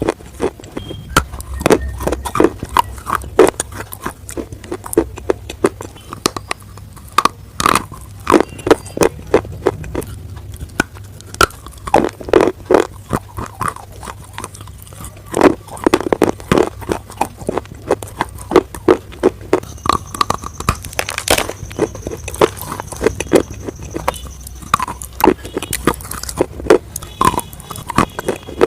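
Close-miked crunching bites and chewing of fried chicken nuggets: a steady run of sharp, irregular crunches.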